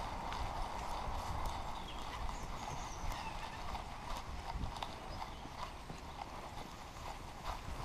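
Running footfalls of a Belgian Malinois–American Akita cross, its paws striking grass and earth in a fast rhythmic gait, picked up by an action camera strapped to the dog's back. Scattered short clicks and a steady low wind rumble on the microphone run through it.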